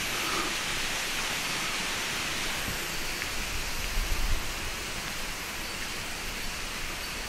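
Steady, even outdoor background hiss with no clear tones, and a brief low rumble about four seconds in.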